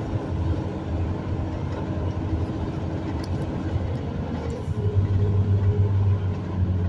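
Steady low engine and road rumble heard from inside a moving vehicle on an uphill grade, with a low hum that grows louder about five seconds in.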